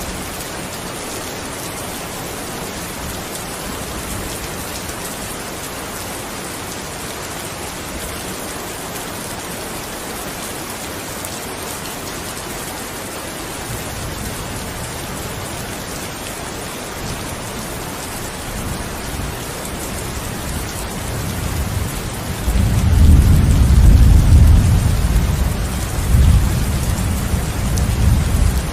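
Steady rain falling as an even hiss, with a low thunder rumble building in the second half, loudest a few seconds from the end, then rolling again before it fades.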